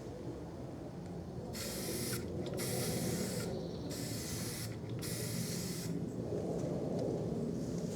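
Aerosol spray-paint can spraying in four short bursts, each under a second with brief pauses between, laying a light coat of paint on metal saw parts.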